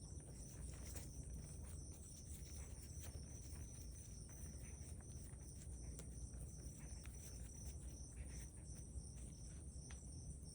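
Insects chirping steadily in the background as a fast-pulsing high tone, with faint scattered taps and rustles of hands working plant strands into potting soil.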